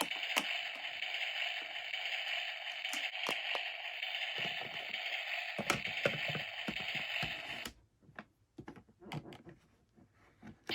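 Small plastic toy kitchen pieces clicking and tapping as they are handled, over a steady hiss that cuts off suddenly about three-quarters of the way through; softer scattered clicks and handling noise follow.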